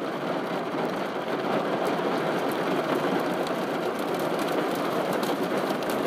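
Rain mixed with small hail falling steadily, heard from inside a car: a dense, even hiss with faint scattered ticks of ice.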